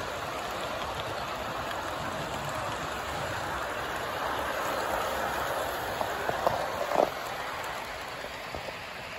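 Model train cars rolling past close by on the track: a steady rattle of metal wheels on the rails, with a few sharp clicks about six to seven seconds in.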